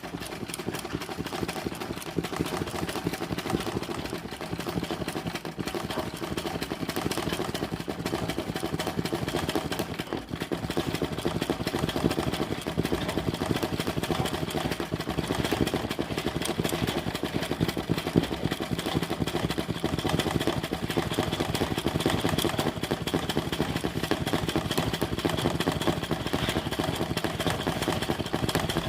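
Electric sewing machine running continuously at a steady speed, its needle mechanism making a fast, even rattle that starts abruptly.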